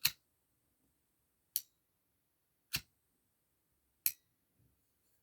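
Four sharp single clicks, spaced more than a second apart, from a Zippo lighter fitted with a butane insert being worked by hand.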